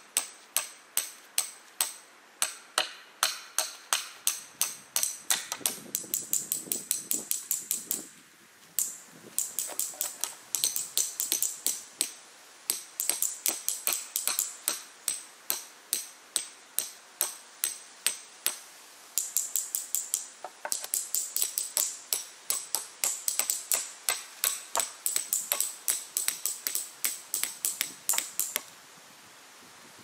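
Hammers driving steel form pins to secure concrete slab forms: a fast, steady run of sharp ringing metal-on-metal strikes, about two to three a second. There is a short break about eight seconds in, and the strikes stop shortly before the end.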